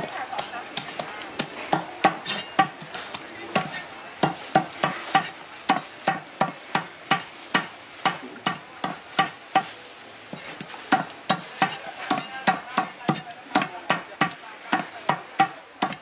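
A meat cleaver chopping a cooked bone-in chicken into pieces on a thick round wooden chopping block. It makes a fast, uneven series of sharp knocks, about two to three a second, each with a short ring.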